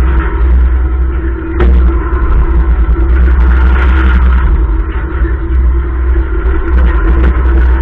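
Loud, steady low rumble of the Super Schunkler fairground ride in motion, picked up by a camera riding on its platform, with a steady hum over it.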